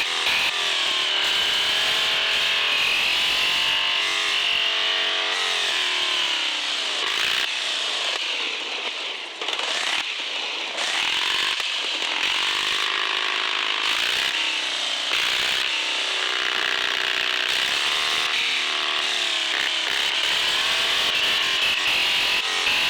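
Radio-controlled 4x4 crawler truck's electric motor and gears whining, the pitch rising and falling again and again with the throttle.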